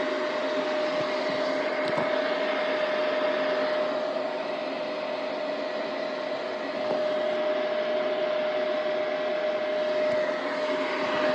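A steady mechanical whir with a constant mid-pitched hum running through it, unchanging throughout.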